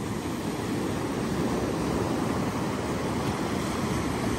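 Sea surf: waves breaking and washing up the shore in a steady rush.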